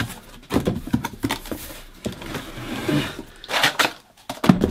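Handling noises from a plunge saw and its box contents being picked up and set down on a bench: a run of knocks and clunks, a scraping rustle in the first half, and a louder clatter about three and a half seconds in.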